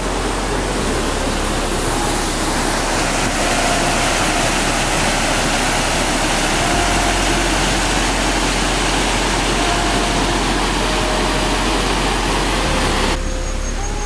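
Steady rushing of a small waterfall cascading over rocks, an even wash of water noise that cuts off about a second before the end.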